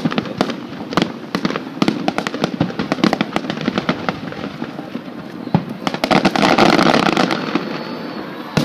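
Fireworks display: a fast, irregular run of bangs and crackles from aerial shells bursting overhead. It thickens into a louder, denser stretch about six seconds in, with one sharp bang near the end.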